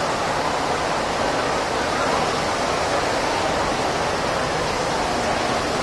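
Steady hubbub of a large crowd in a big indoor hall, many voices blended into an even wash with no single voice standing out.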